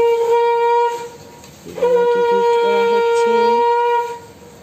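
Conch shell (shankha) blown in long, steady, single-pitched blasts, as at a Hindu ritual. One blast ends about a second in, and a second blast starts just before two seconds in and holds until near the end.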